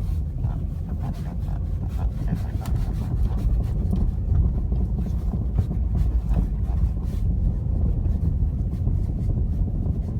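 Opel Astra J front suspension knocking over small road bumps: repeated irregular light knocks over the steady low rumble of the car driving, heard from inside the cabin. The owner suspects play in the original front shock absorbers rather than the brake calipers.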